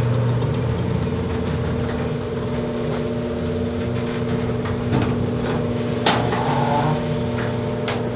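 A motor running with a steady, even hum, with a couple of light clicks about six and eight seconds in.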